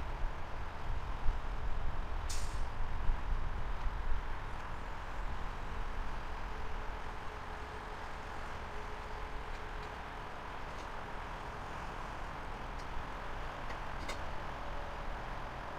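Low rumble of a train easing off over the first few seconds, with a single short hiss of air about two seconds in.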